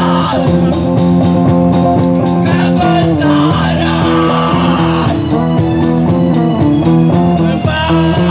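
A man singing loud into a microphone over a live band, with a drum kit keeping a steady beat under amplified rock accompaniment.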